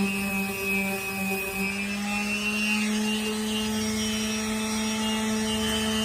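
Electric power sander running steadily with 80-grit abrasive, a constant motor hum over a hiss.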